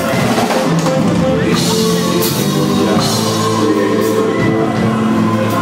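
Live band music played loud through a concert sound system: a drum kit under held, sustained chords.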